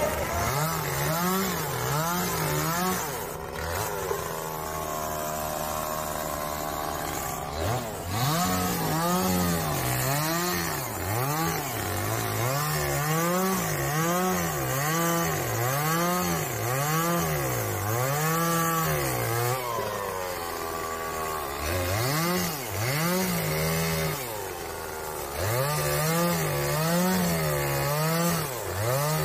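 Engine working under changing load, its pitch rising and falling about once a second over and over, with a short lull partway through.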